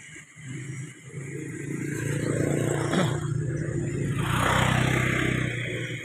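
Motor vehicle engine passing by on the road, growing louder from about a second in and loudest in the second half, with a brief rise in pitch about three seconds in.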